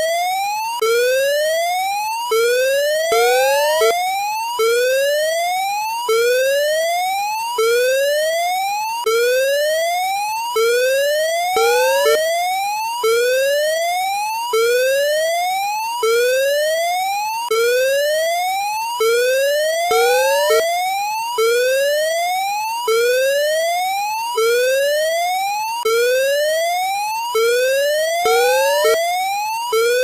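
Electronic emergency alert alarm: a rising whoop tone that climbs about an octave in just over a second, then cuts off and starts again, over and over. A quick double blip breaks in every eight or nine seconds.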